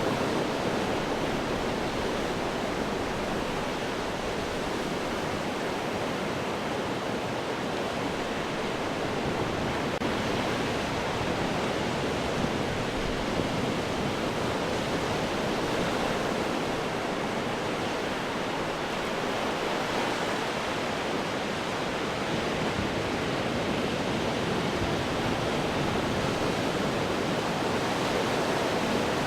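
Ocean surf breaking and washing over rocks: a steady rush of water that rises and falls only slightly.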